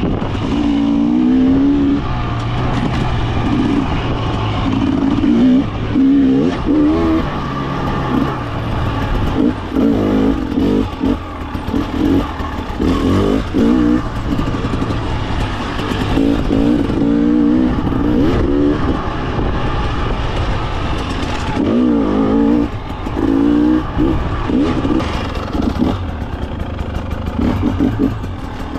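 2024 Husqvarna TE300 fuel-injected two-stroke dirt bike engine being ridden, its revs rising and falling again and again as the throttle is opened and closed every second or two.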